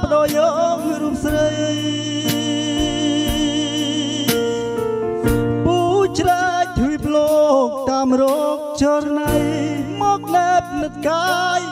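A man singing through a microphone, amplified by a powered mixer, over backing music with sustained chords and a steady beat; his held notes waver with vibrato.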